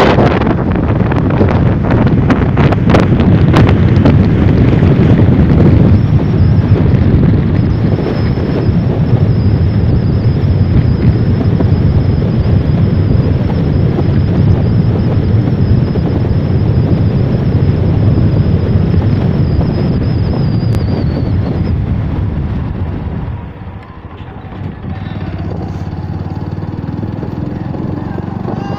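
Wind buffeting the microphone over the steady running and road noise of a moving vehicle, heard from on board. A thin high whine runs through the middle, and the noise drops somewhat near the end.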